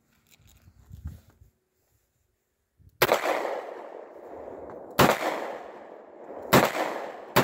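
Ruger SP-101 revolver firing .38 Special rounds. After about three seconds of quiet come four shots, a second or two apart, the last right at the end. Each shot is followed by a long echoing tail.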